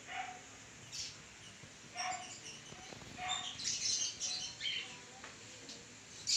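Birds chirping: short calls about once a second, with a quick run of higher chirps in the middle.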